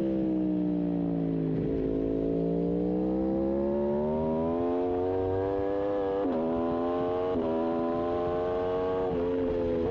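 Aprilia RSV4 1100 Factory's V4 engine at racing revs. The revs fall away smoothly as the throttle closes, then climb hard under acceleration, broken by three quick upshifts, each a sudden drop in pitch, a little after six seconds in, at about seven and a half, and just after nine.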